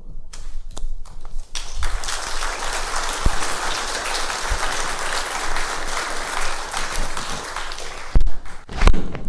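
Audience applauding, swelling in about a second and a half in and dying away near the end, followed by two loud thumps.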